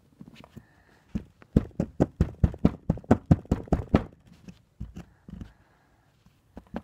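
Screwdriver tip chipping at a plaster excavation-kit block: a quick run of sharp knocks, about five or six a second, from about one second in to four seconds in, then a few scattered taps.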